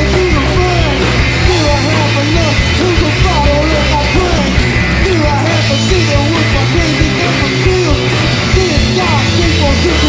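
Loud rock music with a singer's voice over a steady bass and beat.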